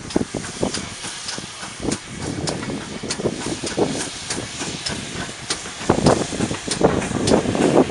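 Steam locomotive working a goods train past: chuffing exhaust beats over hissing steam, growing louder over the last couple of seconds as the engine draws close.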